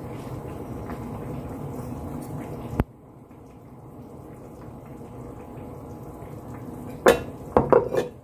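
Liquid poured from a glass bottle into a stainless-steel ladle over a steady low hiss, with a sharp click about three seconds in and a few clinks of glass and metal near the end.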